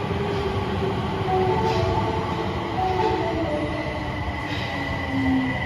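Subway train moving through an underground station, its inverter motor drive whining in steady tones that shift in pitch over the rumble of the wheels and running gear.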